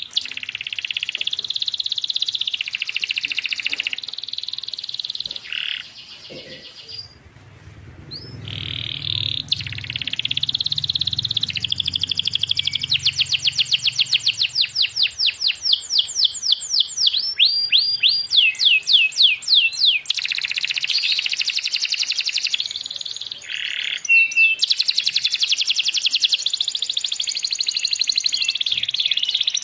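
Domestic canary singing a long, varied song: rolling trills, then a long run of fast repeated sweeping notes in the middle, with a brief pause before it. A low hum sits underneath for several seconds near the middle.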